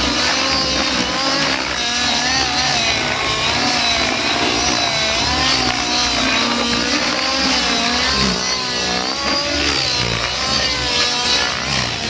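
Nitro glow engine of a 7HV-class RC helicopter running hard through aerobatics, its engine note wavering up and down continuously as the rotor load changes and the heli swings past.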